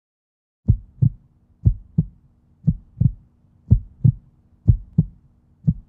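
Heartbeat sound effect: a low double thump about once a second, six beats in all, over a faint steady hum.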